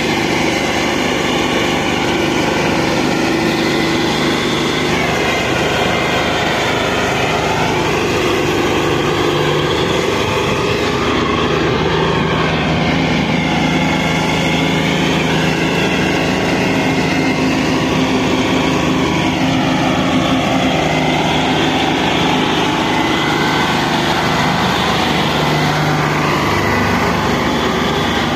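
Diesel tractor engine running under load while hauling a heavily loaded sugarcane trolley, steady, with its pitch slowly drifting up and down.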